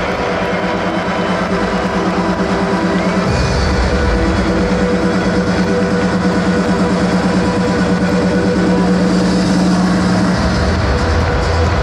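Music with a steady beat and held tones; a deeper bass line comes in about three seconds in.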